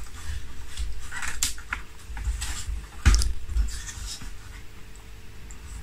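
Irregular light scraping, rustling and soft clicks of small balsa-wood parts being handled and pressed into place by hand, with a few low bumps against the work surface.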